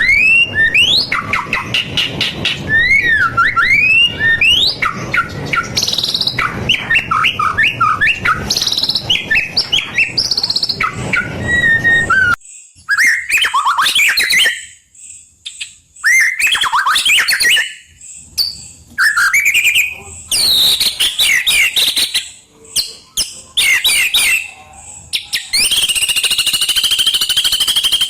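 White-rumped shama (murai batu) singing continuously: rapid, varied whistled phrases, swooping glides, chirps and trills. About twelve seconds in, the background hiss drops away and the song goes on in short bursts with gaps. Near the end a long, steady buzzing note is held for a couple of seconds.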